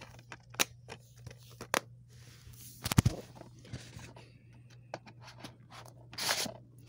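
Handling noise from plastic DVD cases: a string of short clicks and taps. About three seconds in comes a louder knock as the phone is set down, then more taps and a short rustle, over a faint steady low hum.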